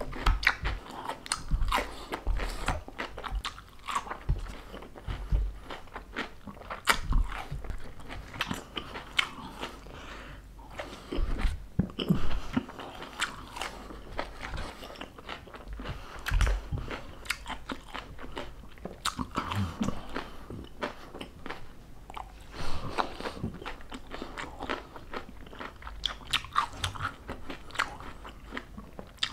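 Close-miked chewing and crunching of crisp food: irregular crunches and wet mouth sounds throughout.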